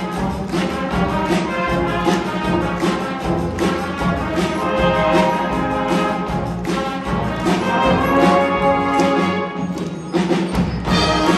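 An elementary school brass band playing a piece on stage: brass instruments with percussion marking the beat.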